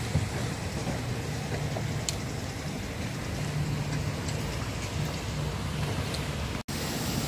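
Steady rushing outdoor noise with a low rumble underneath, cutting out for an instant near the end.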